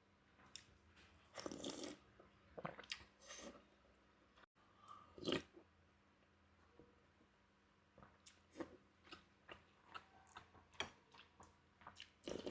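Close-miked eating of cuanki meatball soup: soft chewing and biting with wet mouth clicks, a few louder noisy bursts in the first half and a run of quick small clicks in the second half.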